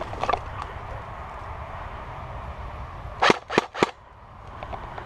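Three quick shots from a King Arms Thompson airsoft electric gun (AEG), each about a quarter second apart, about three seconds in. Near the start, footsteps crunch in dry leaf litter.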